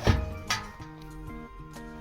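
Background music with held notes that shift in pitch, and two sharp knocks within the first half second.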